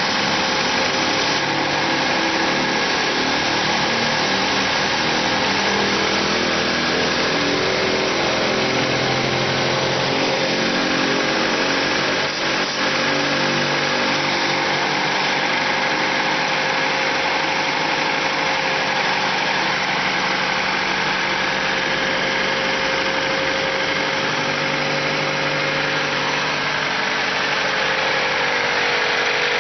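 Car engine idling steadily, with a steady whine over the engine noise and a brief dip in the sound about twelve seconds in.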